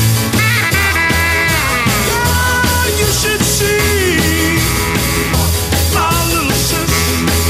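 Upbeat rock-and-roll soundtrack music with a steady beat and a sliding lead line.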